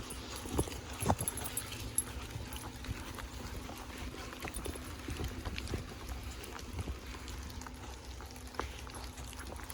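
Footsteps on a wooded trail, with scattered irregular taps, over the patter of light rain and a steady low rumble.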